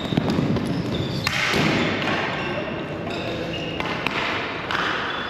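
Ball hockey game play in a hall that echoes: the ball and sticks thudding, feet on the floor, and scattered voices.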